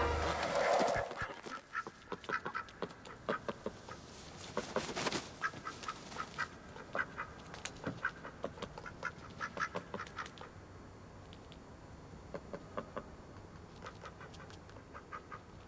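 White domestic ducks quacking: rapid runs of short quacks for the first ten seconds or so, then only scattered ones. A swell of music fades out in the first second and a half.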